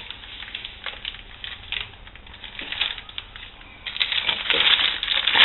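Plastic bag crinkling as it is handled and opened, with faint scattered rustles at first and denser, louder crinkling from about four seconds in.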